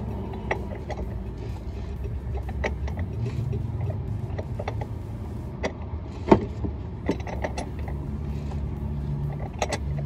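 A steady low mechanical hum with scattered light clicks and taps, and one sharper tap about six seconds in.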